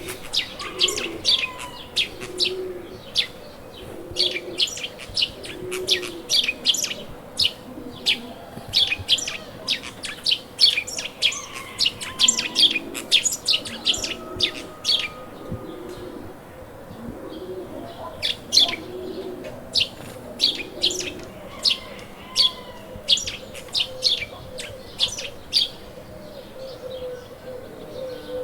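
Dawn chorus of small songbirds chirping in quick, sharp notes. A dove coos low in a steady repeating rhythm near the start and again in the middle.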